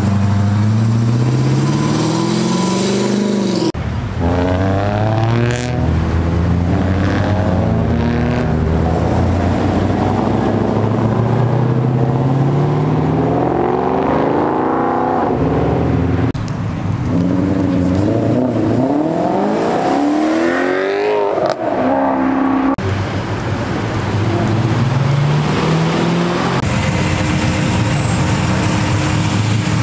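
Car engines revving hard and accelerating away one after another, the pitch climbing again and again as they run up through the gears. The sound switches abruptly from one car to the next several times.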